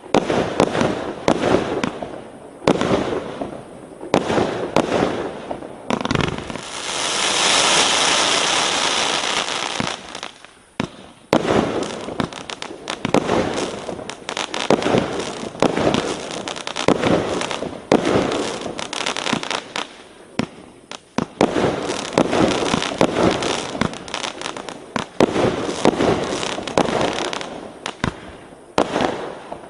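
A 339-shot, 1-inch fireworks cake firing shot after shot in quick irregular succession, each launch and burst a sharp bang. About seven seconds in, a few seconds of dense crackling hiss from crackling effects fill the gaps.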